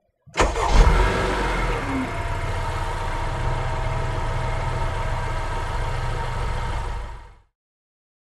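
Car engine starting and catching with a brief rev, then running steadily at idle before fading out about seven seconds in.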